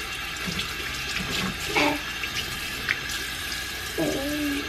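Water running steadily from a pull-out hose spray head into a washbasin as a baby's hands are rinsed under it. A short voice sound comes about two seconds in and again near the end.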